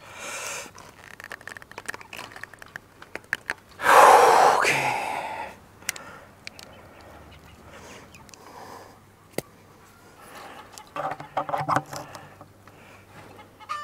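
Plastic hose and fittings of a bucket chicken waterer being handled and connected: scattered clicks and rattles, with a loud hiss about four seconds in that fades away over a second and a half.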